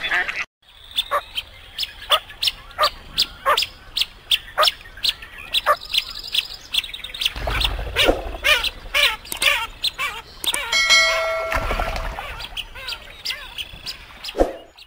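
Blue-winged teal calling: a long series of short, high peeping calls, a couple per second. Partway through there is a brief held tone.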